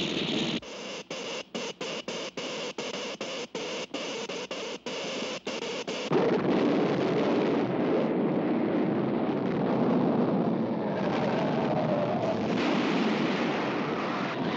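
Cartoon sound effects of an electric earthquake machine: a noisy pulsing buzz chopped by short breaks two or three times a second. About six seconds in it gives way to a louder, continuous rumble as the earthquake shakes the city.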